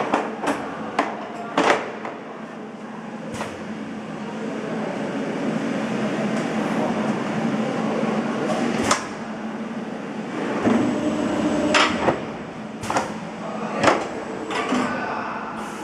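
Machine running with a steady hum, broken by a dozen or so sharp clicks and knocks, the loudest near the end, with voices in the background.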